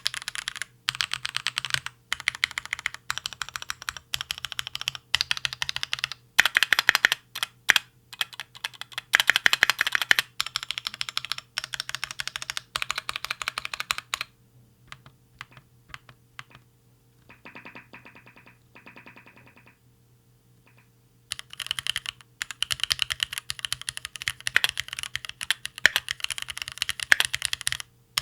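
Fast, random typing on a Keychron Q2 mechanical keyboard with Gateron G Pro Brown tactile switches, keys clacking in dense runs. Midway the typing thins out and stops for a few seconds, then starts again.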